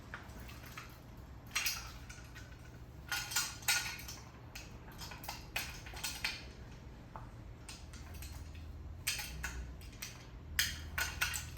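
Metal parts of a miter saw stand clinking and knocking as they are handled and adjusted: a series of separate sharp clanks in small clusters a few seconds apart, with light rattles between.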